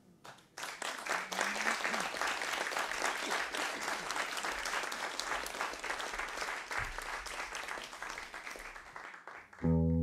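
Audience applauding, the clapping thinning out over several seconds. Just before the end the band starts playing.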